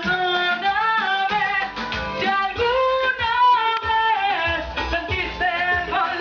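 A woman singing into a handheld microphone over backing music with a beat, karaoke-style, her held notes sliding in pitch.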